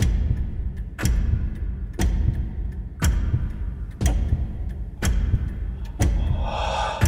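Loud, dramatised ticking of a grandfather clock, one heavy tick each second with lighter ticks between, over a continuous deep rumble. A hissing swell rises and fades near the end.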